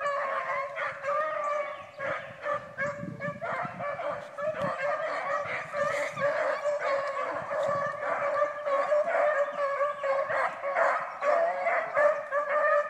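Three derby (young) beagles baying continuously in overlapping voices as they run a rabbit's track: a hound pack giving tongue on the scent.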